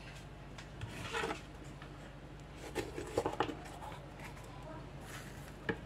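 A kitchen knife slicing through a bell pepper on a plastic cutting board, with short rubbing and scraping noises as the peppers are handled and the blade cuts through. A faint steady hum runs underneath.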